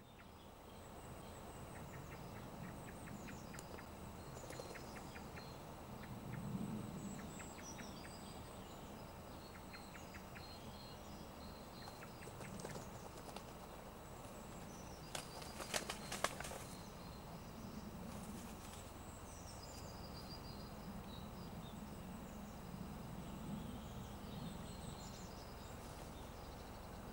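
Faint small birds chirping and singing over a low background rumble, with a quick cluster of sharp clicks a little past the middle.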